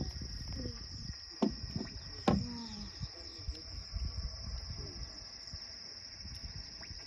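Insects chirring in a steady high-pitched drone over a low rumble, with two sharp knocks about a second and a half and two seconds in.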